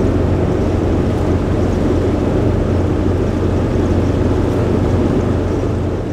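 Steady engine and road noise heard inside a 22-foot Lazy Daze motorhome's cab while it drives at highway speed, a continuous low drone that dips slightly near the end.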